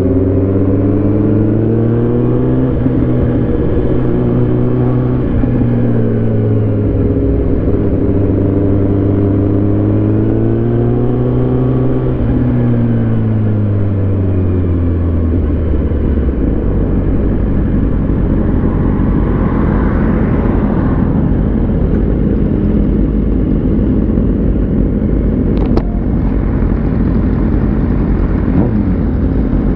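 Sport motorcycle engine under way, its pitch climbing and falling twice with the throttle, then settling to a steady idle about halfway through as the bike stops.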